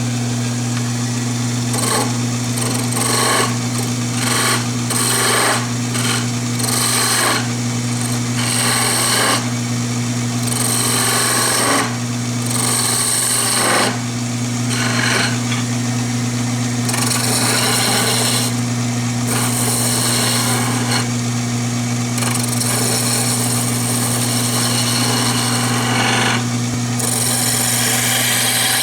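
Wood lathe driven by a DC motor running with a steady hum while a hand-held turning tool cuts a spinning yellow pine chair-leg blank, the cutting coming in irregular scraping passes every second or two.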